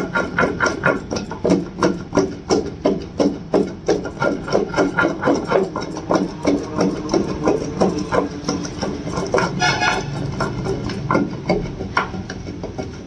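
A wooden pestle pounding raw tamarind and green chilli paste in a stone mortar: a steady run of dull knocks, about three strokes a second, growing softer and less regular in the last few seconds.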